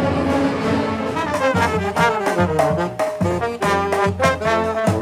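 Brass band playing, trombones and trumpets together: a held chord, then from about a second in a run of short, detached notes.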